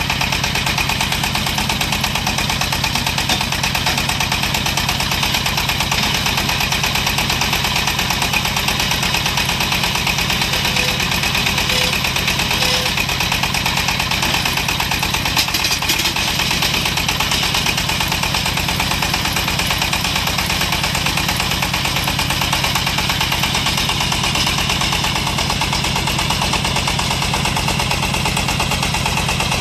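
Engine of a small portable water well drilling rig running steadily at a constant speed, a dense rapid pulsing without change.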